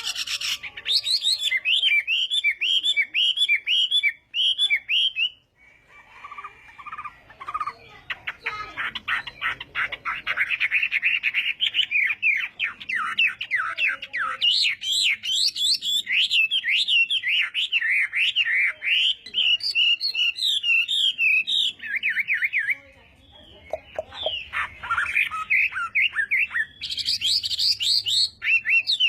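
Chinese hwamei singing a loud, fast song of rapid repeated whistled notes and varied phrases, broken by two short pauses.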